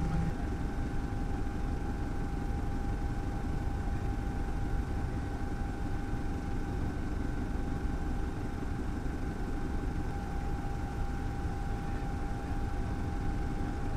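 Helicopter running steadily, its engine and rotor noise a constant low rumble with a steady high whine.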